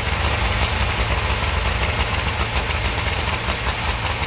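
Snowmobile engine idling steadily with a rapid low pulsing, flame showing at its exhaust.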